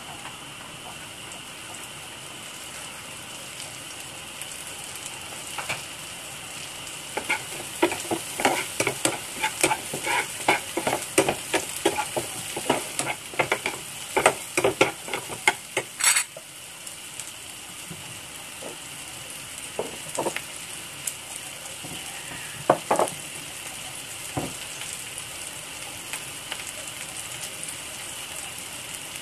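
Chopped shallot and garlic sizzling in oil in a nonstick frying pan, with a slotted spatula clicking and scraping against the pan in quick strokes as they are stirred, from about seven to sixteen seconds in. A few single knocks of the spatula follow later.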